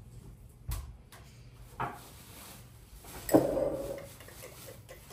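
Kitchen handling sounds: a couple of light knocks, then a louder clunk with a short clatter about three seconds in, like a drawer or cupboard being shut or a utensil set down.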